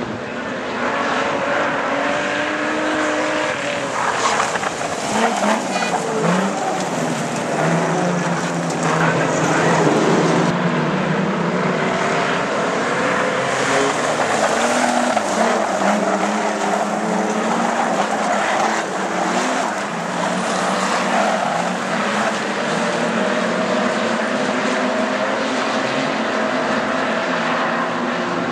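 A pack of street stock race sedans running hard around a dirt speedway oval, several engines overlapping, their notes rising and falling as the cars accelerate and lift off.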